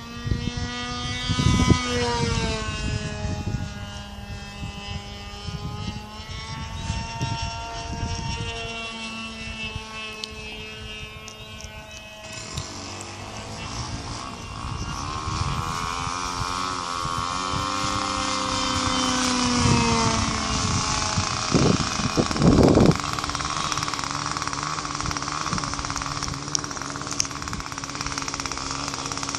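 Glow-fuel engine of a radio-controlled model airplane running in flight, its pitch gliding up and down as the plane passes and the throttle changes, with wind gusting on the microphone. About twelve seconds in a louder, denser engine note takes over.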